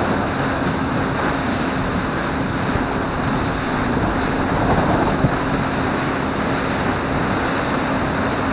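A boat's 150 hp outboard motor running with a steady hum under wind buffeting the microphone and water rushing past the hull, with a single light knock about five seconds in.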